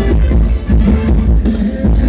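Loud Thai ramwong dance music over a large PA, with a heavy drum beat about twice a second under pitched melody lines.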